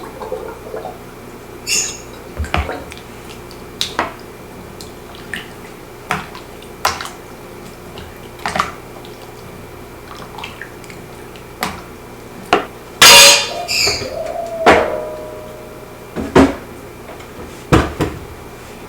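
Scattered light clicks and knocks of hard objects being handled, one every second or two, with a louder clatter about two-thirds of the way in that leaves a short ringing tone.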